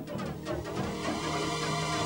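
Background music: sustained chords that build and grow brighter towards the end.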